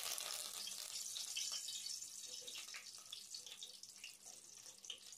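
Fresh curry leaves sizzling in hot oil in a wire strainer, with the flame turned off: a steady hiss with scattered crackles that slowly dies down.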